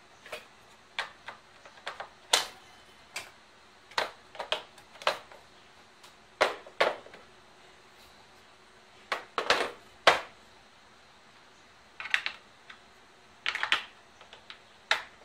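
Irregular clicks and knocks of hard plastic and stainless-steel hand blender accessories being handled and set into the moulded slots of a plastic carrying case, some singly and some in quick clusters.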